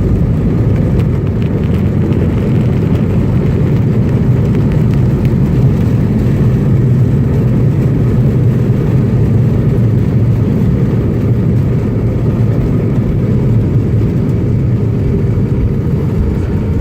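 Steady low rumble of an airliner heard from inside the cabin as it rolls along the runway after landing, engine and wheel noise together. A higher hiss over it in the first few seconds thins out as the plane slows.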